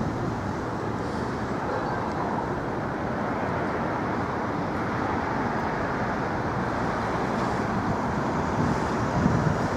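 Steady road traffic noise: a continuous rush of vehicles passing on a busy bridge, with no single vehicle standing out.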